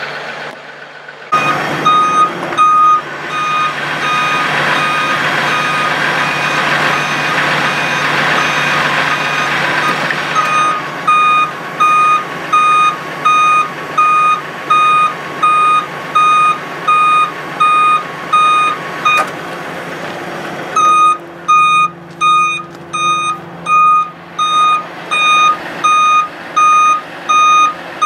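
A truck's warning beeper sounds a steady high beep about once a second. It pauses briefly around two-thirds of the way through, then starts again. The truck's engine hums underneath, with a rushing noise over the first third.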